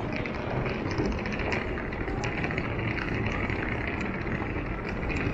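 Steady urban street ambience: a constant wash of traffic and crowd noise, with faint scattered clicks throughout.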